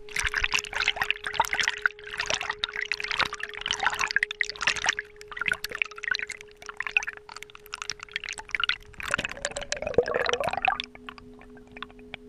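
Lake water splashing and sloshing over a camera riding at the waterline of a kayak hull, in irregular gushes with sharp spattering clicks. About eleven seconds in the splashing stops as the camera goes under, leaving only a faint steady hum.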